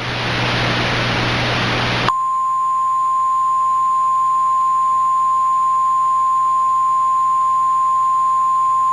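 A loud hiss of static for about two seconds, then a single steady pitch that holds unbroken: the NOAA Weather Radio 1050 Hz warning alarm tone that comes before a tornado warning broadcast.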